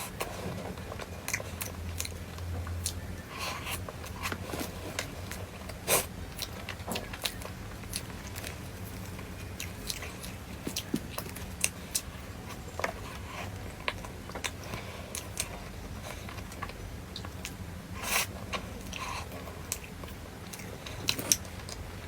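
A person biting and chewing food close to the microphone, with irregular crunchy clicks and smacks, over a steady low hum.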